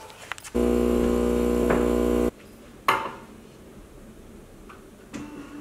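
Countertop coffee machine humming loudly and steadily for almost two seconds, then cutting off suddenly, followed a moment later by one sharp clack at the counter.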